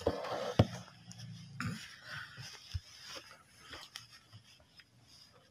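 Rustling and scraping of hands working embroidery thread through cloth, with a few light clicks, fading away near the end.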